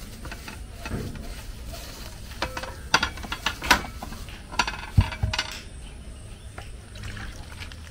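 Dishes and bowls being handled on a table: a scatter of sharp clinks and knocks, the loudest about five seconds in.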